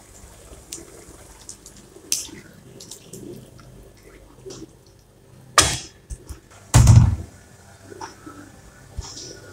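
Wooden spatula stirring and scraping a thick paste frying in oil in a wok, with faint sizzling and scattered light taps. A sharp knock a little past the middle is followed about a second later by a heavier thud.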